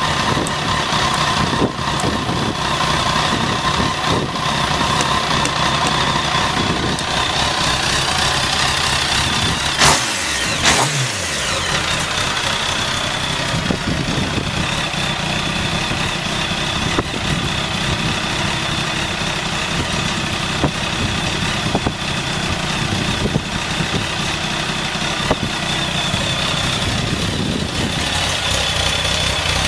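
Kawasaki ZX-10R 998 cc inline-four engine idling steadily, with a short loud blip about ten seconds in. The idle is even with no abnormal noise, the sign of a healthy engine.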